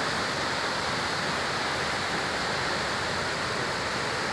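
Small waves breaking and washing in on the shore: a steady rush of surf.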